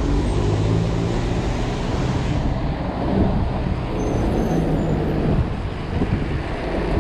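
Heavy road traffic heard from a bicycle in the lane: the engines of a city bus and trucks running close by, over steady tyre and road noise.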